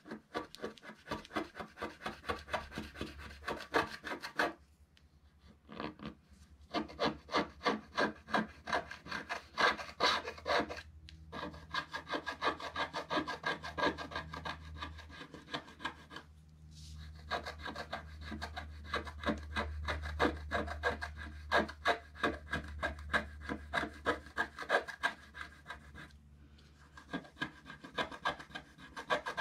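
Wooden stylus scratching the black coating off a scratch-art card in quick, repeated scraping strokes, several a second. The scratching stops briefly a few times.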